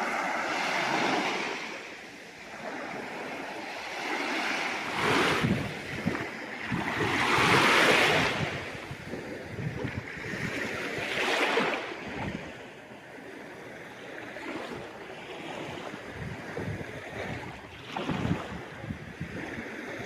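Black Sea waves breaking and washing up on the shore in several surges, the strongest a little before the middle.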